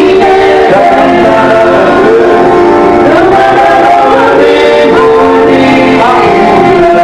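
Worship music with voices singing together, loud and continuous.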